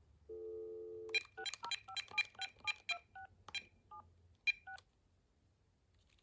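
Cordless phone handset: a telephone dial tone for about a second, then a quick run of about a dozen touch-tone (DTMF) key tones, each key press with a short beep and click, stopping about five seconds in.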